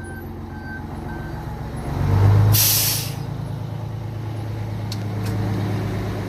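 Idling truck engine with a short burst of compressed air: a low swell then a sharp hiss of air lasting about half a second, about two and a half seconds in, as air is pushed through a clogged truck air horn.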